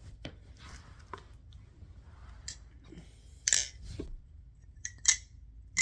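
Nabalis Impulse balisong being flipped: a few sharp metallic clicks as the handles swing and clack together, the loudest about three and a half seconds in and again near five seconds, with softer clicks between.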